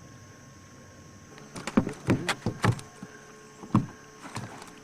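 A run of irregular knocks and thumps over a low steady hum, starting about a second and a half in, some close together and some spaced out.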